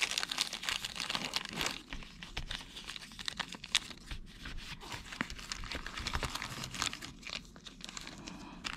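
Clear plastic zip-top bags crinkling and rustling as they are handled, with many small sharp crackles, busiest in the first couple of seconds.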